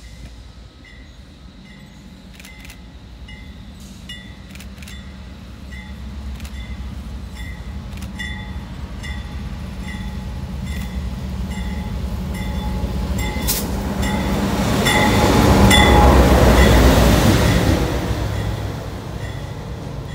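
Diesel freight locomotive approaching and passing, its engine rumble and wheel noise growing to a peak about three-quarters of the way in, then easing as the freight cars roll by. A bell dings steadily about twice a second.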